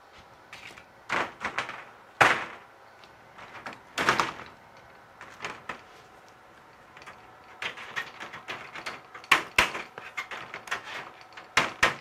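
Stiff galvanized half-inch hardware cloth being unrolled and flattened on a workbench: the wire mesh rattles and scrapes, with irregular knocks, the loudest about two seconds in, and a denser run of clicking and clattering in the second half.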